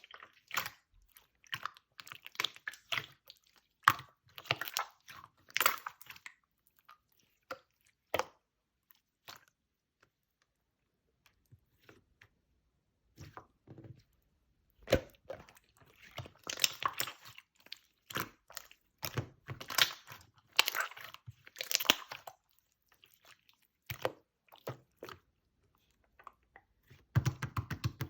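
Clear slime being squished and pressed by hand, making bursts of wet clicking and crackling pops, with a quiet pause about a third of the way in.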